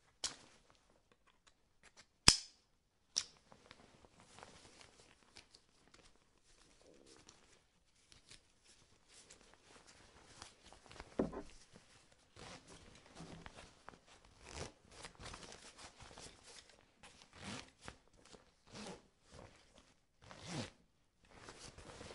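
Foley of winter sports pants: synthetic shell fabric rustling and swishing in irregular bursts. Two sharp snaps come a little after two and three seconds in, the first the loudest sound.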